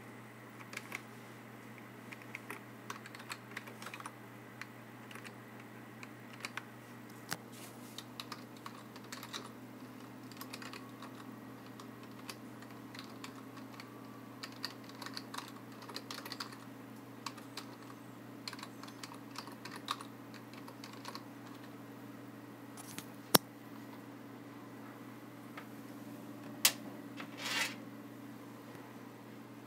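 Typing on a desktop computer keyboard: soft key clicks in irregular runs over a steady low hum. Near the end come a few louder clicks and a short scrape as a plug and cable on the desk are handled.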